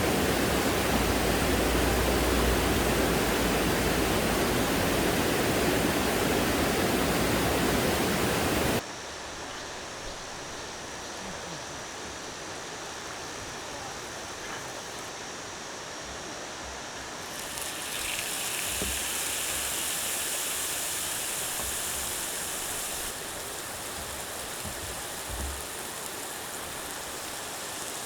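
Mountain stream water rushing over rocks in a steady, full hiss. About nine seconds in it cuts abruptly to a quieter, thinner rush, and a brighter hiss joins for several seconds later on.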